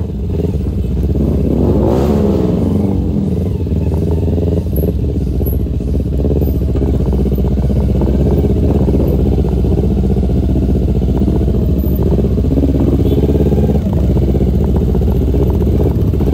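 A vehicle engine running under way, with its pitch shifting up and down about two seconds in and short rattles here and there.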